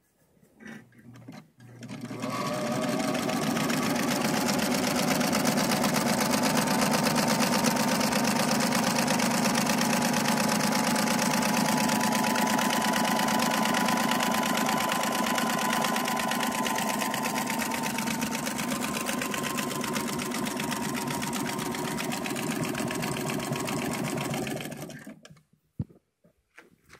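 Antique Singer Sphinx portable sewing machine run by its electric motor at a steady speed: a steady motor whine under a fast, even clatter of the needle mechanism. It starts about two seconds in and winds down near the end.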